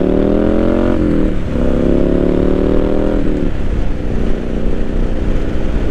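A 2017 Triumph Street Scrambler 900's parallel-twin engine pulling away and accelerating through the gears. The pitch rises, drops at a gear change about a second in, rises again, then drops a little past the middle and settles to a steady cruise under a low wind rumble.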